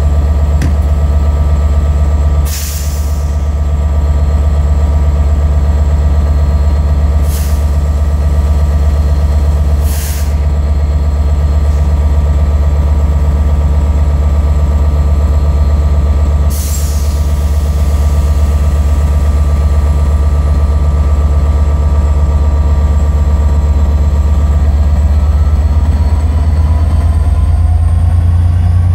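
Class 67 diesel locomotive's two-stroke V12 engine idling with a loud, steady low drone, broken four times in the first half by short hisses of released air. Over the last few seconds the engine note starts to rise as the locomotive takes power to pull away.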